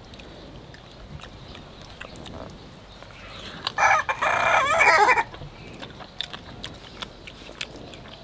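A rooster crows once, about four seconds in, a loud call lasting about a second and a half.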